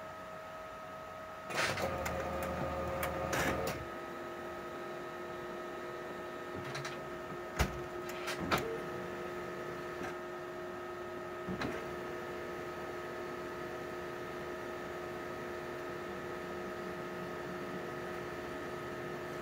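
Oki colour laser printer going through its power-on start-up. Its mechanism runs loudly for about two seconds, then there are a few sharp clicks over a steady hum. That hum gains a lower tone once the running stops.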